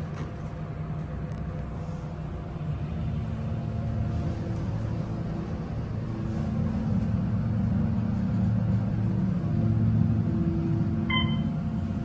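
Otis Series 2 elevator car travelling between floors: a steady low rumble and hum that grows louder through the middle, then a short chime near the end.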